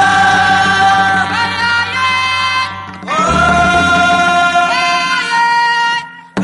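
Background music with a voice singing two long held phrases, each sliding up into its note, over instrumental accompaniment.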